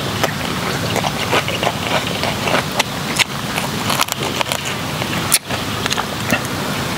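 Close-up eating of roasted chicken: chewing and biting, with many short sharp crunches and clicks over a steady hiss.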